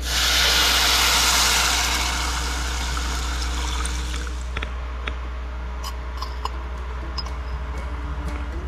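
Meat and dripping fat sizzling on a charcoal barbecue grill. A loud hiss sets in abruptly and eases over the first couple of seconds into a steadier sizzle, with small crackles and pops in the second half.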